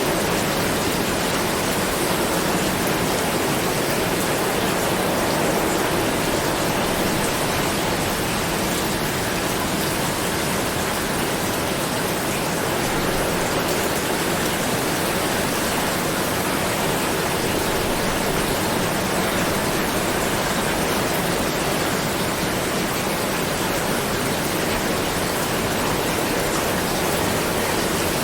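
Steady rain: a dense, even hiss of rainfall with no single drops standing out.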